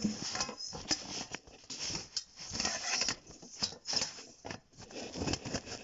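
A dark metal cake tin with a removable base being handled and its base fitted back in by hand: irregular metal scrapes, taps and clicks.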